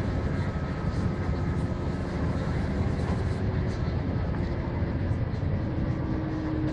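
Volvo B7R coach's diesel engine and road noise heard from inside the cabin while it drives at steady speed: a dense, steady drone, with a faint whine beneath it that steps up in pitch twice in the second half.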